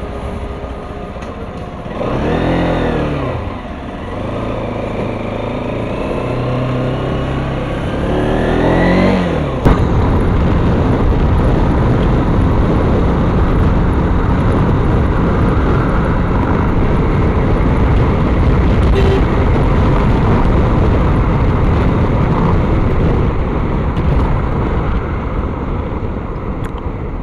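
Bajaj Pulsar NS200 motorcycle engine revving up and falling back through the gears twice while pulling away. About ten seconds in, a loud, steady rush of wind on the helmet camera at road speed takes over and covers the engine.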